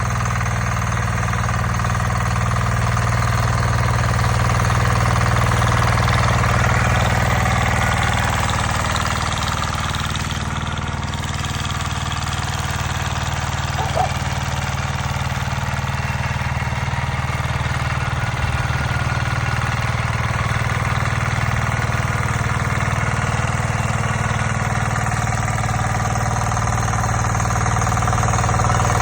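Tractor engine running steadily during field preparation, its diesel hum swelling a little and easing off again without stopping.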